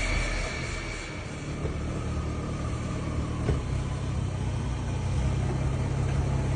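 BMW M140i xDrive's straight-six engine running with a steady low hum, and a single sharp clunk about three and a half seconds in: the driveline clunk that the owner puts down to the Wavetrac limited-slip differential.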